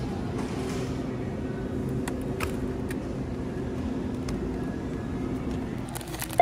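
Steady low hum of a supermarket's refrigerated display cases, holding a few fixed low pitches, with a few faint clicks from plastic cake containers being handled.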